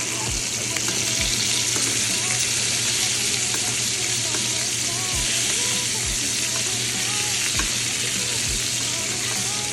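Food frying in a hot pan, a steady sizzle, with a few dull low knocks scattered through it.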